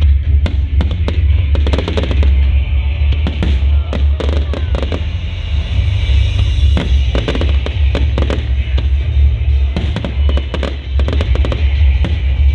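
Fireworks bursting in quick, irregular succession, sharp cracks and pops over a constant deep booming rumble, with music playing alongside.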